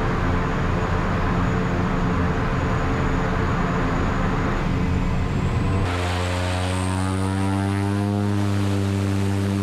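Pilatus PC-6 Turbo Porter's turboprop engine and propeller running steadily, with a faint high turbine whine that rises about five seconds in. About six seconds in the sound changes to a smoother drone with clear low tones.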